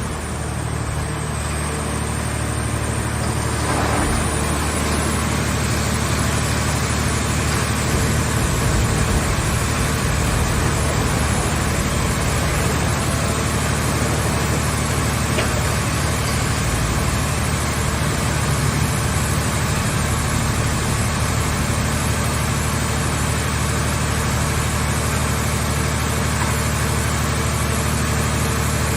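Scrap car baler's power unit running steadily with a constant low hum, no crushing impacts heard.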